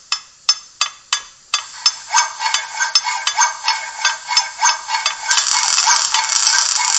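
Recorded workshop sound effects from the Märklin 39940 model's sound decoder, played together through its small loudspeaker: hammer blows at about three a second, joined about a second and a half in by a continuous rasping work noise with its own rhythmic strokes, and a further hissing layer near the end. The sound is thin, with no bass.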